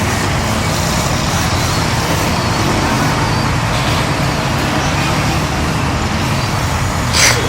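A steady engine drone with a low hum, and a brief hiss near the end.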